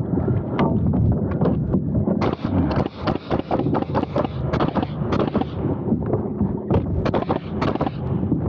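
Pneumatic framing nailer firing nails into lumber: a rapid, irregular series of sharp shots, thickest in the middle and later part, over a steady low rumble.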